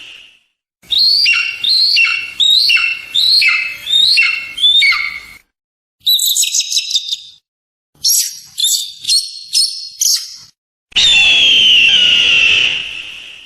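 Eagle calls, several different recordings cut one after another with short silences between: a run of about seven quick falling cries, a short high trill, five short high cries, then one long harsh scream falling in pitch near the end.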